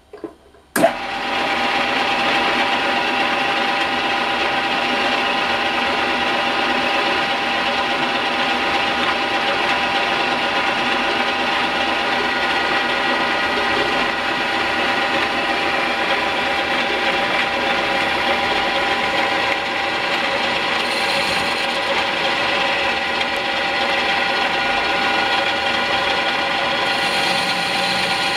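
CNC-converted E1N metal lathe starting up with a sharp knock about a second in, then the spindle and gear train running steadily with a whine made of several steady tones.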